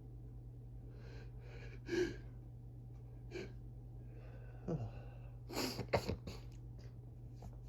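A person sneezing in an allergy fit from grass pollen. A breath in and a sharp sneeze come about two seconds in, then a gasping inhale and a second, louder sneeze about six seconds in. A low steady hum runs underneath.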